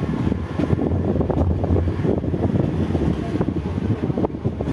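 Mumbai suburban electric local train running along the track, heard from its open doorway: a steady low rumble from the coach with many quick rattles and clicks from the wheels and body.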